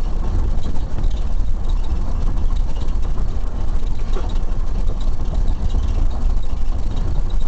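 Steady low rumble of a police car's engine and road noise, heard from inside the cabin.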